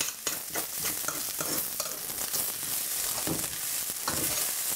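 Spoon stirring and scraping vegetable fried rice in a stainless steel saucepan, knocking against the pan a few times a second, over a steady sizzling hiss from the hot pan with the stove just turned off.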